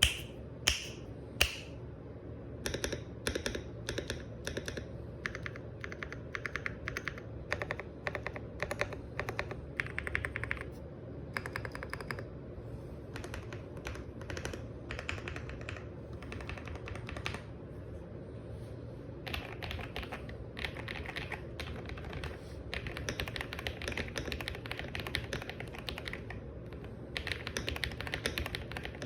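Typing on a mechanical keyboard with a soft, "creamy" key sound: three single key presses at the start, then bursts of quick typing broken by short pauses.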